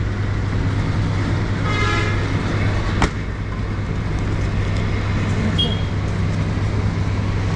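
A vehicle horn toots once, about two seconds in, over a steady low machine hum. A sharp click follows about a second later.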